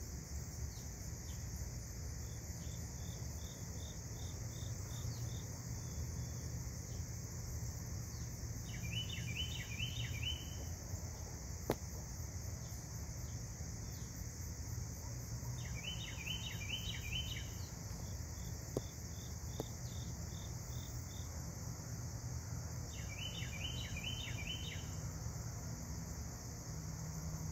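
Insects droning steadily in a high, even tone, with a short run of quick chirps that repeats about every seven seconds.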